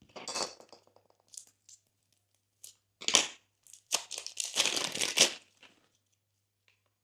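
Glossy slime being worked by hand, with crackling, clicking air-bubble pops. It comes in three bursts: a short one at the start, a brief one about three seconds in, and a longer one from about four to five and a half seconds.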